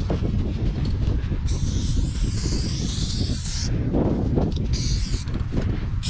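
Aerosol spray-paint can spraying black paint onto a wall: one long hiss of about two seconds starting about a second and a half in, then a short burst near the end. A steady low rumble runs underneath.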